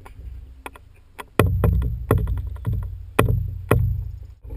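Wooden-framed umiak and its bicycle boat trailer jolting over pavement: a run of sharp knocks and rattles starting about a second and a half in, each followed by a short low rumble.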